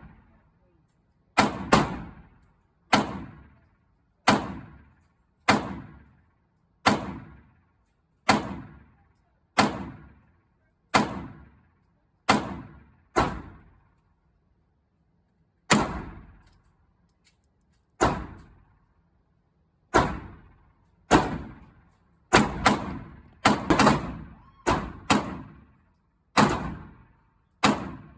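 Gunshots on a shooting range: a steady string of single shots about one and a half seconds apart, each with an echoing tail. After a pause about 14 s in, the firing resumes and the shots come closer together, some almost overlapping.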